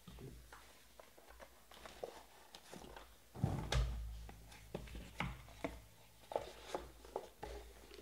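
Cardboard card boxes, a foam insert and hard plastic card cases being handled on a table: scattered light clicks, taps and scuffs. A heavier thump comes about three and a half seconds in.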